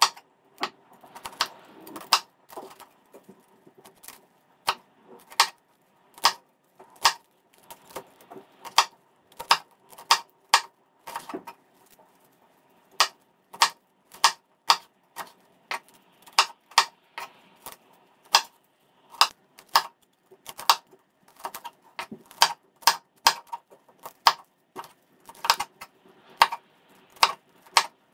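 Kitchen knife cutting broccoli florets on a wooden cutting board: an irregular series of sharp knocks, about one or two a second, with a faint rustle of the florets between strokes.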